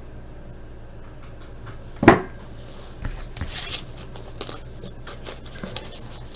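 Handling of a trading card pack and cards: a sharp knock about two seconds in, a brief rustle of wrapper about a second later, then a few light clicks and taps.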